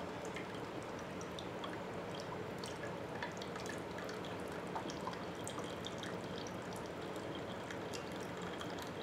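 Cooking liquid from onion and mutton gravy draining through a wire-mesh strainer into a steel pot, falling in a thin trickle with scattered small drips splashing into the pool of liquid below.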